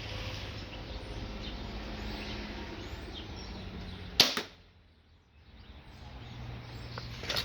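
Wicked Ridge Defender crossbow firing a bolt: one sharp, loud snap of the string and limbs a little over four seconds in. A fainter crack follows near the end.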